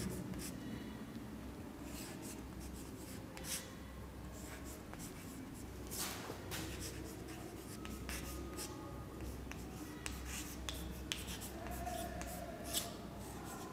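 Chalk scratching and tapping on a blackboard as a sentence is written out by hand, in faint, irregular short strokes.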